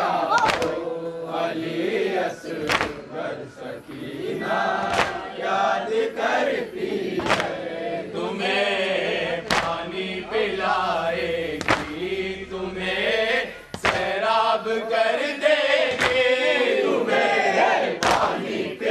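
Men's voices chanting a noha (Shia mourning lament) together, with a sharp slap of hands striking chests (matam) about every two seconds.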